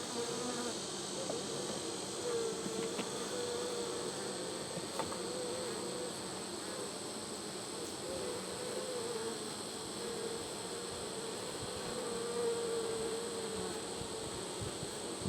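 Honeybees buzzing around an open hive: a steady, slightly wavering hum of many bees in flight, with a few faint clicks.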